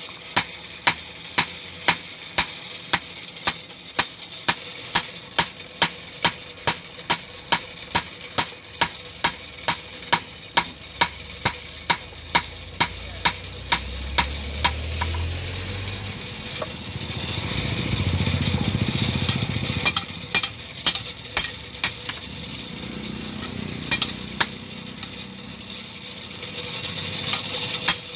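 Hand hammer striking a steel blade on an iron block anvil: about two ringing metal blows a second. Partway through, the blows stop while a low rumble swells and fades. Then they resume, scattered at first and regular again near the end.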